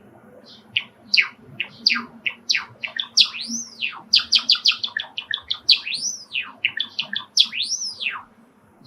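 Male Java sparrow singing close by: a quickening run of short chipping notes with a few drawn-out arching whistles among them, stopping shortly before the end.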